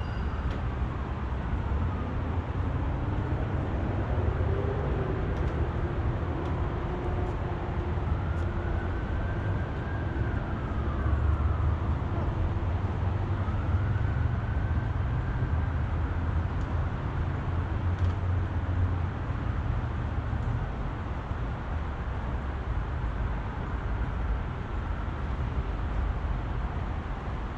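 Steady road traffic, with several vehicles passing by one after another, each a slow rise and fall in pitch over a deep rumble.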